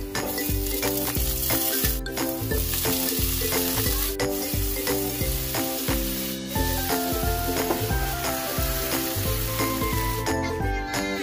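Food sizzling as it sautés in hot oil in a pot: garlic and onions, then tomato, shrimp and mung beans. The sizzle runs over background music with a steady beat, and it breaks off briefly at a few cuts.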